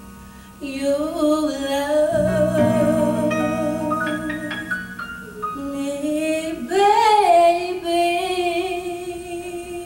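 A woman singing a neo-soul ballad live into a microphone, holding long notes with vibrato over a soft, steady low accompaniment that comes in about two seconds in. A long held note starts about halfway through.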